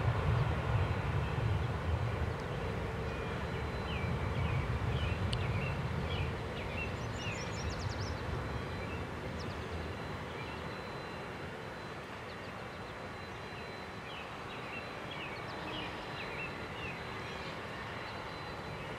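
Low rumble of distant jet airliner engines, strongest in the first few seconds and then slowly fading.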